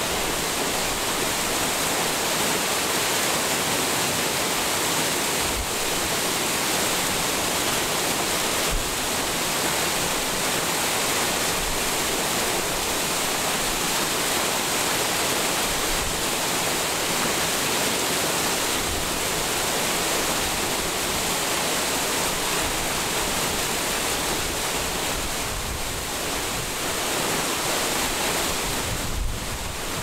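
Irrigation canal water pouring steadily through a row of openings in a concrete water-dividing weir and splashing into the pool below: a constant rush of falling water.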